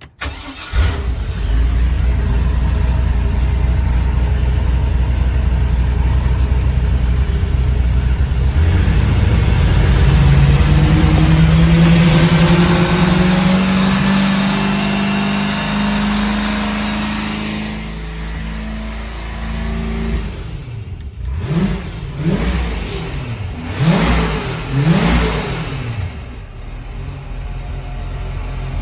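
MerCruiser 5.7 LX (350 cu in) V8 inboard boat engine starting up and running steadily. It then revs up to a higher speed, holds there for several seconds and drops back. Past the halfway point it is blipped several times in quick succession, then settles back to steady running.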